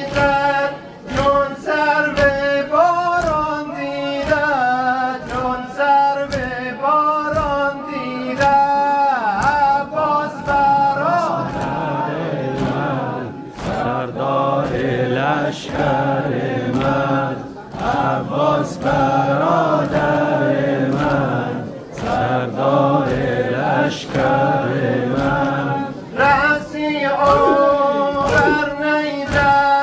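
A male reciter chanting a Shia nawha lament, with a crowd of men singing the refrain together, over an even rhythm of hand-on-chest beats (matam), about one or two a second. The single lead voice is clearest at the start and near the end; through the middle the whole crowd sings.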